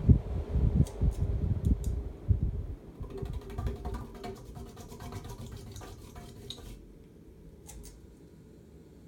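Ceiling fan with a cast-iron spinner motor running, its moving air rumbling on the microphone over a steady motor hum. The rumble dies away over the first few seconds, a fast light ticking follows, and by about seven seconds only a faint hiss is left.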